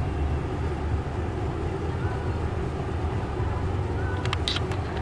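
Steady low rumble of engine and road noise inside a car's cabin, with a few light clicks near the end.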